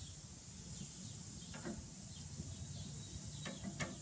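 Shrimp sizzling on a gas grill, a steady hiss, with a couple of short clicks from metal tongs against the shrimp and grate, about one and a half seconds in and again near the end.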